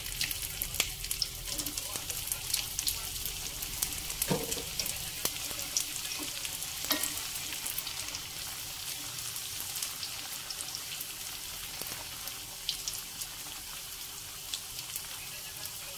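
Chicken-filled wontons deep-frying in hot oil in an aluminium wok: a steady sizzle dotted with crackling pops, and a few sharper clicks.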